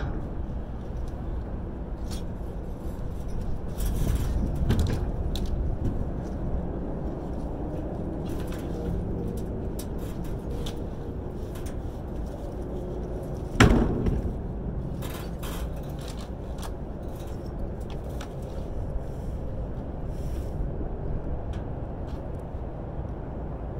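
Scrap metal being handled: scattered knocks and scrapes, with one loud clang about halfway through that rings on briefly, over a low steady rumble.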